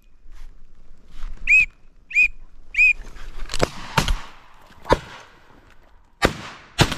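Three short whistled calls, then five shotgun shots fired at ducks in quick succession, the last two about half a second apart, each ringing out across the open water.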